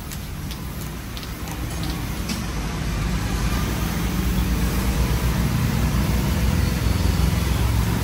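A motor running with a low, fast, even throb that grows louder through the first few seconds and then holds steady.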